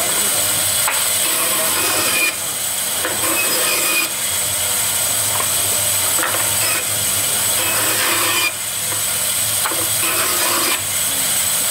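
Electric band saw cutting thin wooden planks: a steady hissing rasp of the blade through the wood over the running motor. The level drops abruptly a few times.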